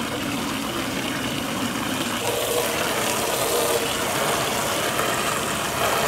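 Water from a garden hose wand running into a plastic stock tub, a steady rushing splash.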